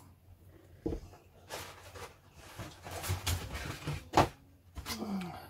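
Plastic model kit and its cardboard box being handled on a cutting mat: a series of knocks, scrapes and rustles, with a sharp knock about four seconds in.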